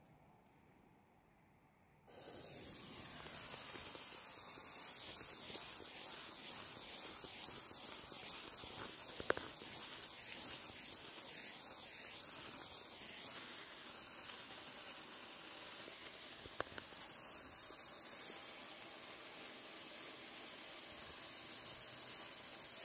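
A sparkler catching about two seconds in and burning with a steady hiss, with two sharp crackles along the way.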